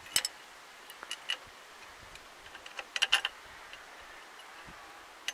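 Light metallic clicks of a spanner on the bolts of a newly fitted engine water pump as it is bolted on, in a few short clusters: just after the start, about a second in, and around three seconds in.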